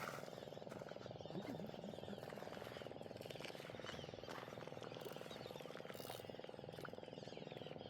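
Faint, steady chorus of frogs calling, a dense rapid trilling.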